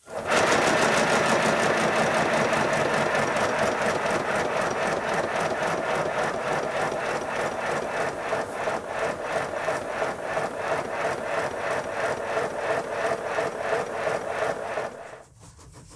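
Model steam locomotive, an LBSC Speedy 0-6-0 pannier tank, running with its wheels spinning on rollers: a fast, even beat of exhaust chuffs from its cylinders with mechanical rattle, stopping about 15 seconds in.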